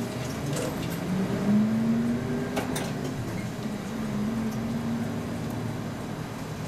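Diesel engine of a route bus pulling along and accelerating, heard inside the cabin. Its note rises about a second in, drops back, and climbs again near the middle. A few sharp rattles from the bus come in the first three seconds.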